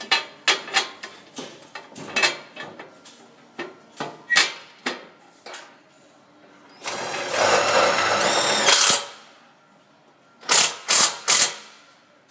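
Clicks and clanks of steel display parts being handled. About seven seconds in, a power drill runs for about two seconds driving a self-tapping screw into a steel beam, its whine rising near the end. Three sharp knocks follow.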